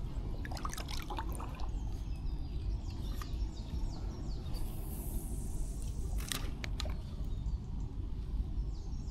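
Flooded creek water running and trickling steadily, with a few sharp clicks scattered through, the strongest about six seconds in.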